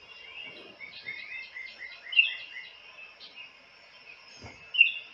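Small birds chirping and twittering: a quick run of repeated short notes in the first couple of seconds, with louder sharp chirps about two seconds in and again near the end.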